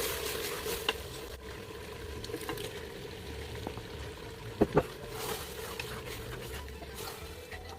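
Fried rice frying and sizzling in a pan while being stirred, with a steady hiss and a few sharp clicks, two close together about four and a half seconds in.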